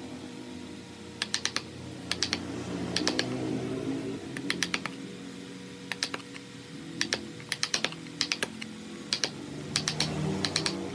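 Wood chisel being struck with a mallet, cutting into a wooden board: sharp taps in quick groups of two to four, about once a second.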